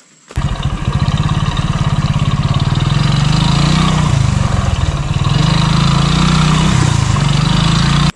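Small motorcycle engine running as the bike is ridden slowly along a muddy dirt track, its pitch rising and falling a little with the throttle. It starts suddenly about a third of a second in and cuts off abruptly at the end.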